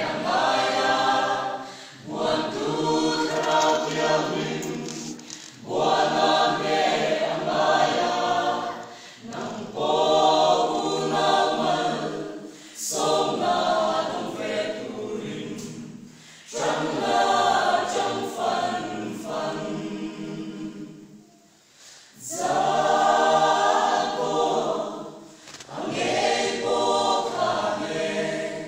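Mixed choir of men's and women's voices singing a hymn in phrases a few seconds long, with short breaks for breath between them and a longer pause a little past two-thirds of the way through.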